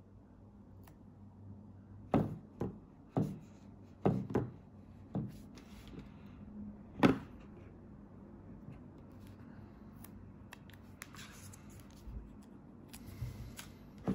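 Fingertips tapping and pressing on a glass screen protector laid over a phone on a table: about seven short knocks in the first half, the loudest about seven seconds in, then light rustling of handling near the end.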